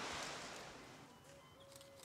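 Sea surf fading out over about the first second, giving way to a quiet woodland background with faint bird calls.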